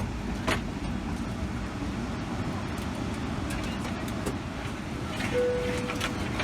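Steady hum of a Boeing 777-300ER's cabin after landing, with a few sharp clicks and knocks and, about five seconds in, a short steady tone.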